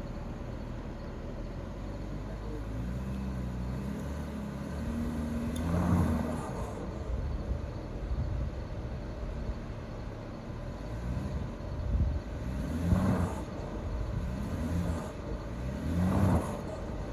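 BMW car engine revving hard in repeated surges, three loudest about six, thirteen and sixteen seconds in, as it strains on a rope to pull a stump out of the ground.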